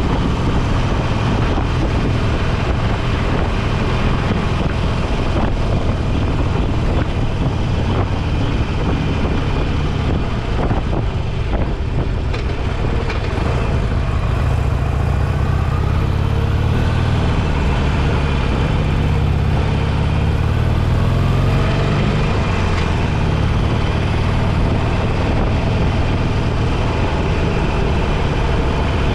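Motorcycle engine running under way, heard up close. It eases off briefly about twelve seconds in, then climbs steadily in pitch as the bike accelerates.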